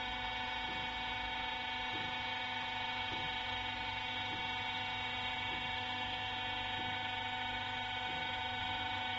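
Hydraulic press brake's pump motor running steadily between bends, a constant machine hum made of several fixed tones.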